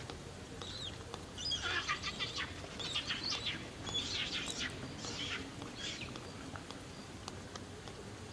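Baby macaque crying: a run of short, high-pitched cries that stops about six seconds in.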